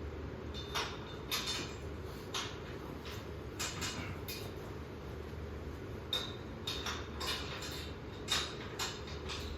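Irregular knocks and clanks of metal scaffolding parts being handled and fitted together, about a dozen over the stretch, a few with a brief high metallic ring.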